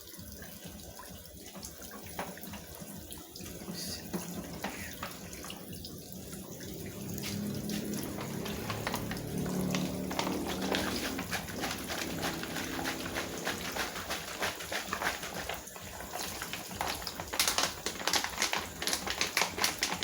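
Water running and splashing into a Consul washing machine's tub, getting louder about a third of the way in, with a faint low hum for a while.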